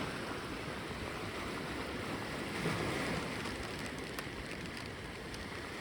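Steady wash of gentle ocean surf on a beach, an even hiss without breaks, with a couple of faint ticks about four seconds in.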